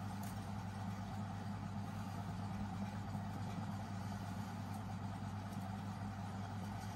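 A steady, unchanging low mechanical hum.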